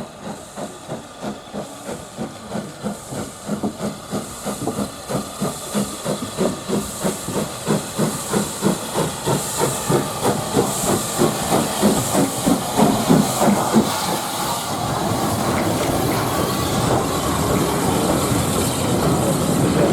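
Steam locomotive under way, its exhaust beats starting at about two a second, then quickening and growing louder as it approaches. About fourteen seconds in the beats merge into a steady rush of noise as it passes close.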